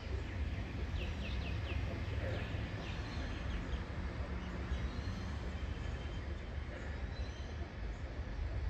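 Outdoor background with a steady low rumble, and a quick run of short, falling bird chirps about a second in, with a few more shortly after.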